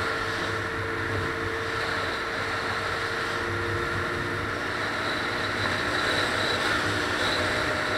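Steady road noise inside a moving car at highway speed: tyres and wind rushing with a low engine hum underneath.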